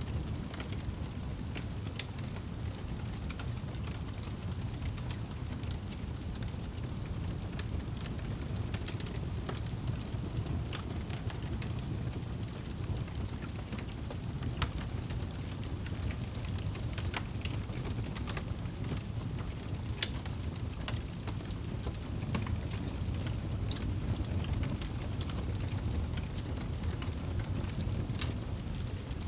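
Wood fire burning in a fireplace: a steady low rumble of flames with frequent irregular crackles and pops, a few sharper ones standing out.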